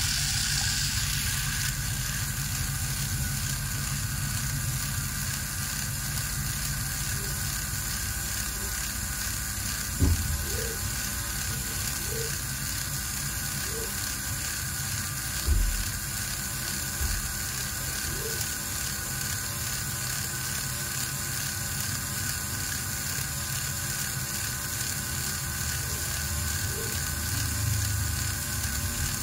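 The small electric motor and gearbox of a handmade miniature model tractor run with a steady whirr. A couple of short knocks come about ten and fifteen seconds in.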